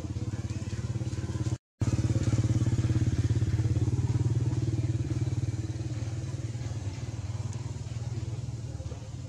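Motorcycle engine running steadily in a low, even drone. The sound drops out completely for a moment a little under two seconds in, then comes back louder and slowly fades.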